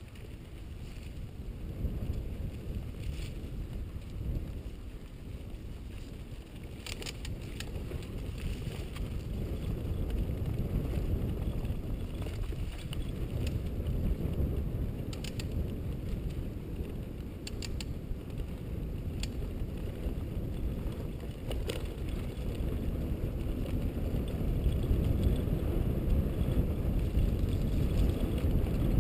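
Mountain bike riding along dirt singletrack, heard from the bike: a low rumble of tyres on the trail and wind buffeting the microphone, growing louder as speed picks up. Scattered sharp clicks and rattles come from the bike over the rough ground.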